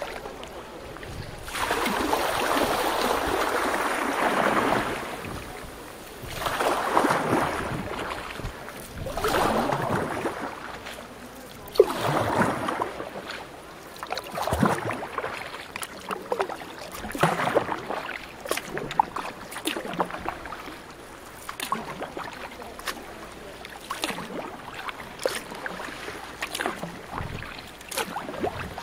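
Water splashing and sloshing around a canoe on the sea. It comes in swells of a few seconds each at first, then in shorter, sharper splashes with small knocks, the sharpest of them just before the middle.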